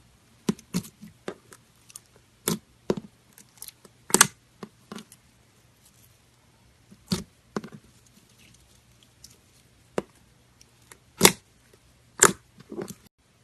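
Clear slime being squeezed and stretched by hand, giving irregular sharp pops and clicks, loudest near the end, over a faint steady low hum.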